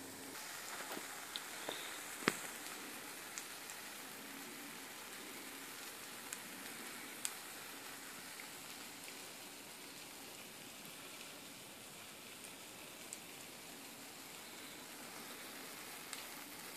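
A pancake frying in oil in a stainless steel frying pan: a steady sizzling hiss dotted with small sharp pops and ticks, the loudest about two seconds in.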